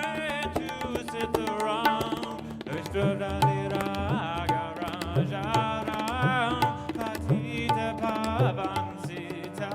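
Tabla and cello playing together: a cello melody with wide vibrato over a busy pattern of sharp tabla strokes, with the bass drum's deep strokes gliding in pitch about once a second.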